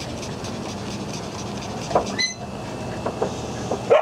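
Steady background noise, with a few short rising whines or yips from the dogs, about two seconds in, around three seconds and again near the end.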